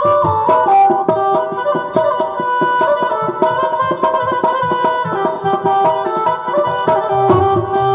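Instrumental passage of a Hindu devotional bhajan: a melody instrument plays stepped notes over a steady hand-drum rhythm, with no singing.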